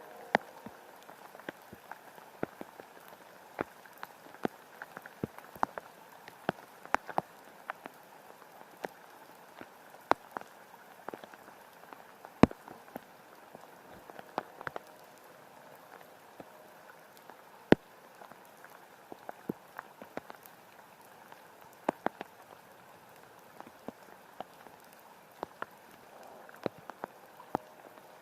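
Rain falling, with scattered drops striking close by as sharp, irregular taps over a steady light hiss.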